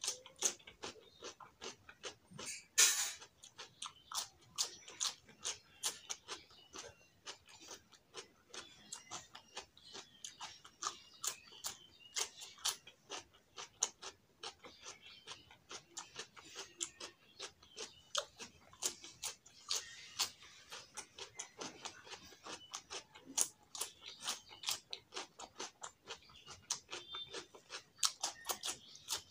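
Close-up chewing of rice and potato curry eaten by hand: wet mouth clicks and smacks, several a second. Crisper crunches come as raw cucumber slices are bitten, the loudest about three seconds in.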